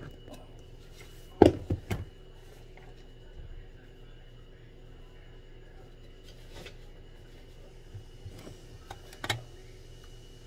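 Scattered knocks and clicks over a steady electrical hum. The loudest is a quick clatter about a second and a half in, and another sharp knock comes near the end.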